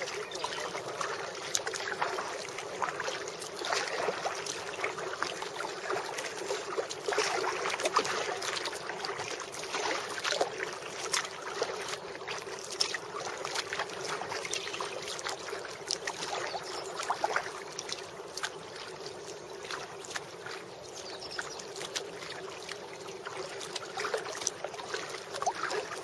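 Kayak paddling on a river: irregular splashes and drips of paddle strokes and water lapping at the hull over a steady hiss of moving water.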